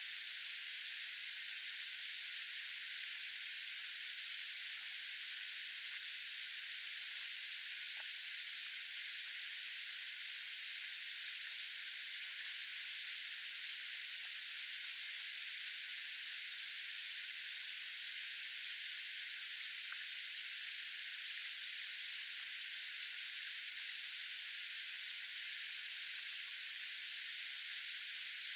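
Steady, even high-pitched hiss, like white noise, that does not change.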